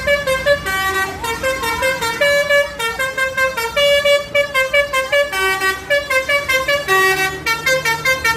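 Basuri 'telolet' musical bus horn playing a quick tune of short notes at several pitches, one after another.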